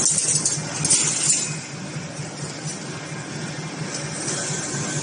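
Chain-link fence making machine running: a steady low hum that pulses several times a second, with bright metallic rattling and hissing in the first second and a half.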